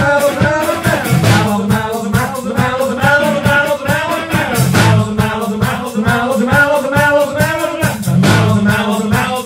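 Live rock band playing: electric guitar, electric bass and a Pearl drum kit keeping a steady beat, with a man singing over it.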